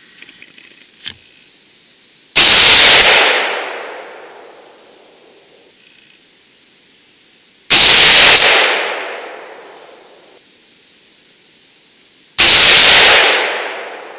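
Three rifle shots from a Double D Armory SST AR-15 in 5.56 NATO, fired slowly about five seconds apart as aimed fire for a group. Each report is sharp and rings out, fading over a second or so; a faint click comes about a second in.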